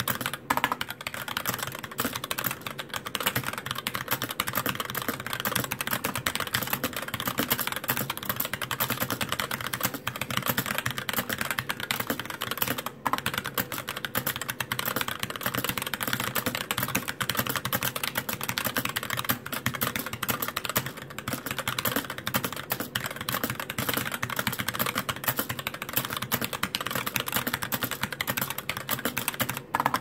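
Fast touch-typing at over 100 words a minute on a Satan GH60 60% mechanical keyboard with light 35 g Gateron Clear linear switches and ABS doubleshot keycaps: a dense, unbroken run of key clacks, pausing briefly about halfway through and again near the end. The space bar, fitted with only a single makeshift stabilizer, rattles.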